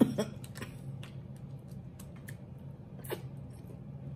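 Crab leg shells cracking and snapping as they are pulled apart by hand. There is a sharp crack right at the start, then scattered smaller clicks, with one more crack about three seconds in, over a low steady hum.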